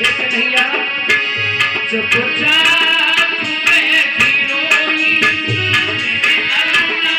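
Indian devotional music: a hand drum keeps a steady beat with a deep stroke about every two seconds, under a melody of held notes.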